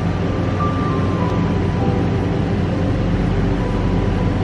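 Background music of soft, sustained held notes that change pitch slowly, over a steady low hum.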